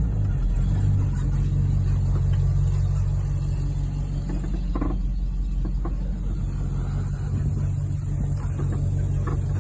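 Vehicle engine running steadily at low speed with a low drone, and a few light knocks as it rolls over rough ground.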